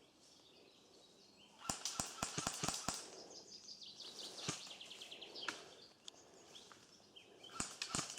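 Airsoft gun firing a quick string of about seven sharp shots over a second or so, followed by softer crackling, then two or three more shots near the end.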